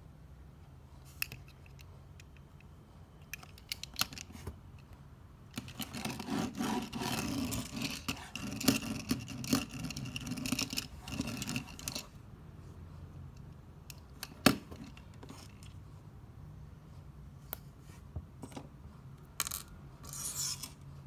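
A 1:64 diecast model car with rubber tyres rolled back and forth across a tabletop, a gritty rolling noise lasting about six seconds in the middle, with a few sharp clicks and taps of the car being handled and set down before and after.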